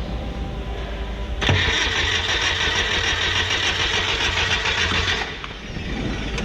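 Starter motor cranking the Mercedes Sprinter 412's freshly rebuilt turbo-diesel engine for about four seconds, then stopping abruptly.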